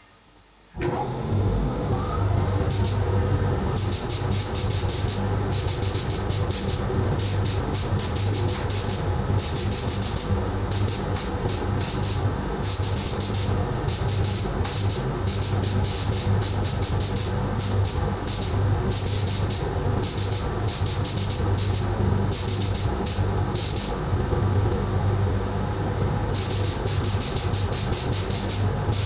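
Sandblaster starting abruptly about a second in and then running steadily: a hiss of air and grit over a low hum, with the high hiss flickering rapidly.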